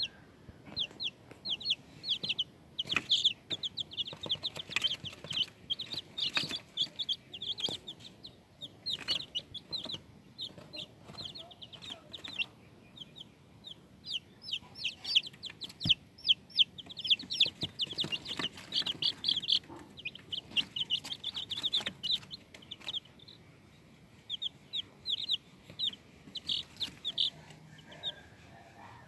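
Baby chicks peeping: many short, high-pitched cheeps in quick runs, overlapping, with scattered faint taps and knocks.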